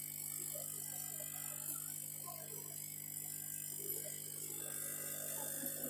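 Steady low electrical hum with a faint high whine under it, and a few faint scattered blips of background sound.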